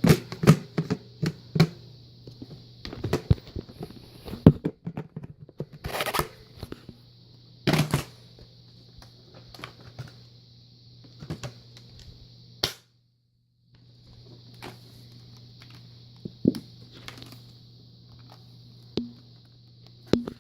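Irregular clicks and knocks of things being handled, over a faint steady hum. All sound cuts out for about a second a little past the middle.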